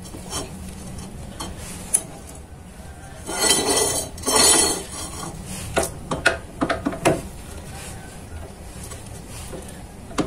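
Square steel tube clinking and scraping against a steel machine vice as it is shifted by hand, over a steady low hum. There are two short scraping rushes a few seconds in, followed by a run of sharp metal clicks.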